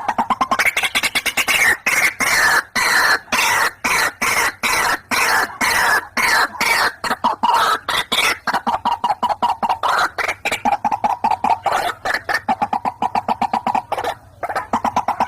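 White-breasted waterhen calling: a rapid, unbroken run of harsh croaking notes, several a second. In the first half the notes come in phrases that slide down in pitch; from about the middle on they settle into a steadier, lower run.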